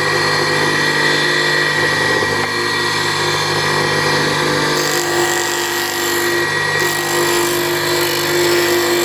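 Bench grinder fitted with an abrasive wheel running steadily while thin MDF cut-outs are pressed against it to grind and round their edges. A steady motor hum and high whine; about halfway through a steady mid-pitched note joins and the grinding grows brighter.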